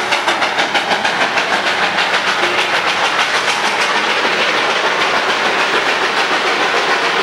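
Darjeeling Himalayan Railway B-class 0-4-0 saddle-tank steam locomotive working a train, its exhaust chuffing rapidly and evenly, about four or five beats a second. The beats fade about four seconds in into a steady rush.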